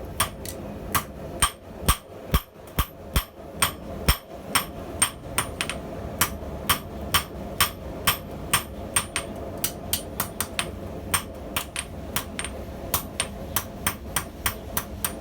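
A YK30 steel hand hammer forging a hard YK30 steel scissor blank on the anvil: a steady run of ringing blows, about two to three a second, over a steady hum.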